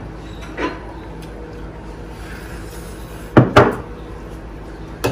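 A steel serving dish set down on a wooden tabletop: two sharp knocks close together about three and a half seconds in, with a softer knock earlier and a short one at the end.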